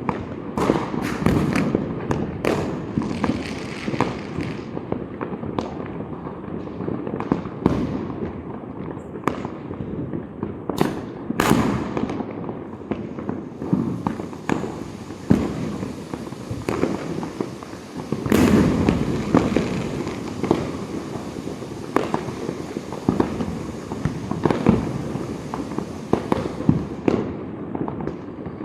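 Diwali fireworks and firecrackers going off all around: a constant rolling crackle of distant bursts with many sharp close bangs scattered through, thickest about two-thirds of the way in.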